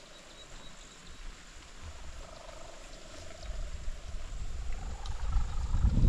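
A cow mooing faintly in one long drawn-out call, over a low rumble of wind on the microphone that grows louder in the second half.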